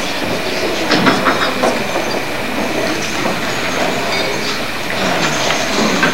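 Auditorium noise during a blackout scene change: a low murmur of voices with scattered knocks and clatter. A faint steady high tone runs underneath.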